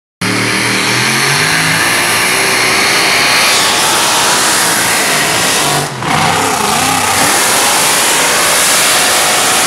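Engines of modified competition pulling tractors running loud at high revs, cutting in suddenly. There is a short break about six seconds in, after which the engine note rises and falls.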